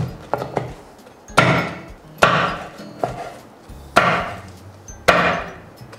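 A cleaver chopping through crispy battered, deep-fried pork belly on a wooden cutting board, with about five hard chops roughly a second apart and a few lighter ones at the start. Each chop knocks on the board, and the crisp crust crunches as it breaks.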